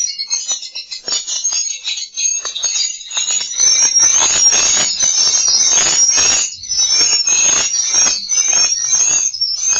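Swiftlet lure sound, recorded swiftlet calls: rapid, high chirping and twittering with short repeated whistle-like notes, growing denser and louder from about three and a half seconds in.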